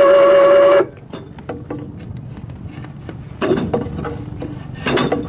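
SEA PRO electric anchor winch running under load with a steady high whine as it hauls in the anchor rope, then cutting off abruptly about a second in; after that only faint scattered knocks. The winch stops as the anchor rope slips out of place.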